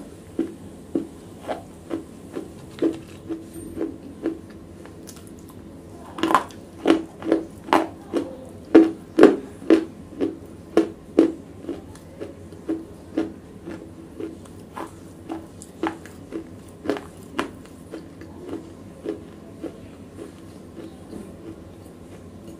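Close-miked chewing of wet black slate pieces: steady crunches about two a second. They pause briefly about four seconds in, are loudest for the next several seconds, then grow softer.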